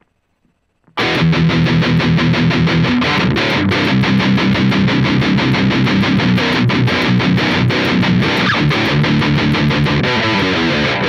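Electric guitar played through Line 6 POD Farm amp-modelling software running standalone: a loud riff with fast, even picking that starts about a second in.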